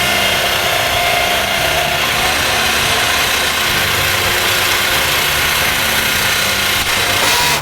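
A motor running steadily, with a dense hiss over a low hum, that cuts off suddenly near the end.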